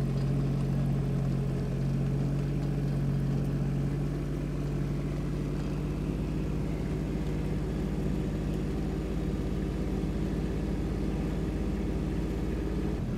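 Motor of the small vehicle carrying a seated hunter, running steadily at low speed with a constant even hum.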